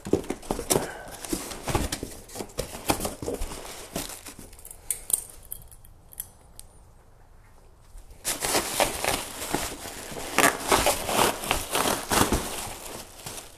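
Cardboard box and packaging handled, with scattered clicks and rustles. After a quieter spell in the middle, a dense run of crinkling comes as the plastic wrapping is pulled off a new headlight assembly.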